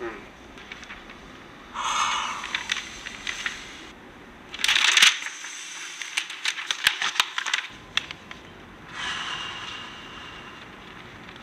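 Paper rustling and pages being turned, in two crinkly bursts full of small crackles over the first eight seconds. A breathy sigh follows near the end.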